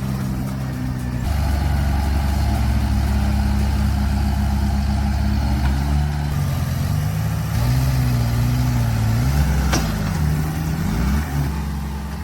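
Heavy diesel engine running hard, its pitch rising and falling as the load changes, with one sharp click about ten seconds in.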